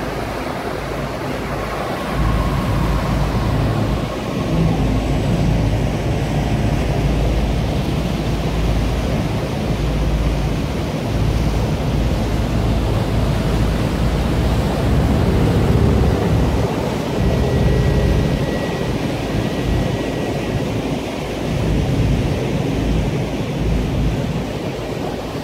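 Wind buffeting the microphone on the open deck of a moving river boat, a gusty low rumble, over the rush of the boat's engine and wake water.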